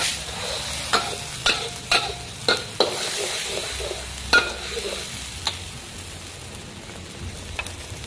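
Spice paste of garlic, shallots and ginger sizzling in hot oil in a wok, stirred with a metal spatula that knocks and scrapes against the pan about seven times in the first five seconds. The sizzle slowly dies down toward the end.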